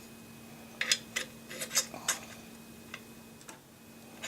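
Light, sharp clicks and taps of small metal parts being handled on an AR-15 lower receiver as the front pivot pin detent spring is fitted into its hole. A quick cluster comes about a second in and a few fainter ones follow.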